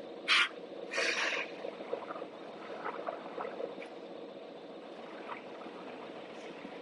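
CNC turret punch press machinery running with a steady hum, broken by two short bursts of hiss, one just after the start and a longer one about a second in.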